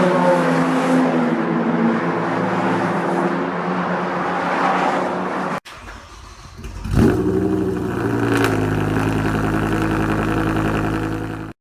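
Car engines in two cut-together clips: first an engine running steadily, then after an abrupt cut a quieter engine that is revved once, briefly, and then settles to a steady run.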